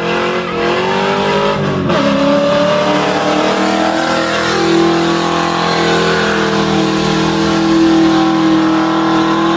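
Ford Mustang (SN95) doing a burnout: the engine is held at high revs with the rear tires spinning and smoking on the asphalt. The revs dip briefly about two seconds in, then climb back and hold steady.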